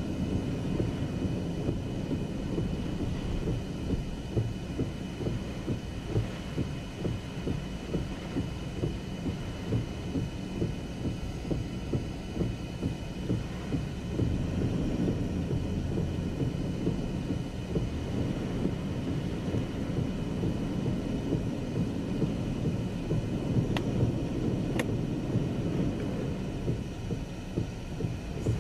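Hurricane-force wind and heavy rain: a steady low rumble with frequent gusty buffeting, wind striking the microphone.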